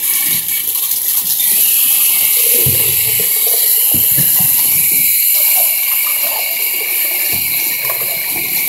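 Water running steadily from a bathtub tap, with a couple of dull knocks around the middle.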